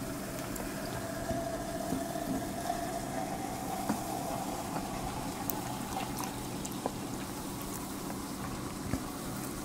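Coca-Cola pouring in a steady stream from a plastic bottle into a glass, fizzing and foaming as the glass fills, with scattered small ticks.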